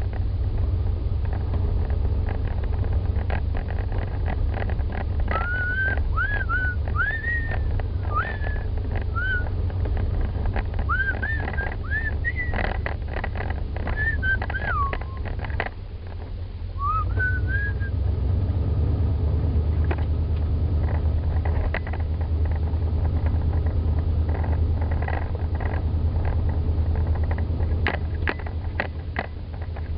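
An old Jeep driving on a rough dirt road, heard from inside the cab: a steady low engine and road rumble with rattles and knocks over the bumps. From about 5 to 17 seconds in, short high chirping notes rise and fall over the rumble.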